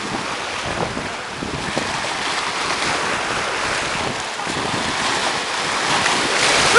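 Choppy sea surf washing and breaking against a rocky shore, with wind noise on the microphone; a steady rushing that grows a little louder toward the end.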